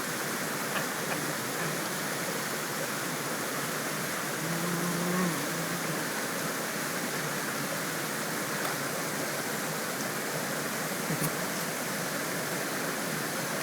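Waterfall and mountain stream running: a steady, even rush of falling water.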